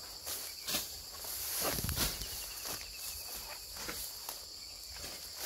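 Footsteps pushing through tall grass, the leaves swishing and rustling with each stride, with a louder rustle about two seconds in. A steady high-pitched insect chorus runs underneath.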